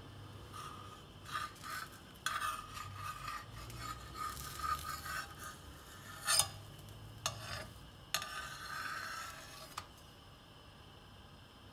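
Steel spatula tongs scraping and rubbing against a tawa griddle as they are worked under a besan chilla to loosen it for flipping, with a few sharp metal clicks between about six and ten seconds in.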